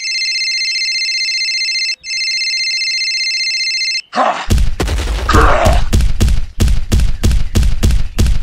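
Electronic phone ringtone, a steady high multi-note ring sounding twice for about two seconds each. About four seconds in it gives way to a rapid run of heavy thuds, three or four a second.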